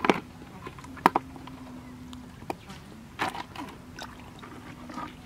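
Hands working in wet mud and handling plastic buckets: a few short sharp knocks and wet slaps over a faint steady low hum.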